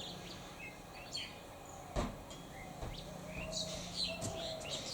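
Birds chirping with many short, high calls, and a single sharp knock about two seconds in.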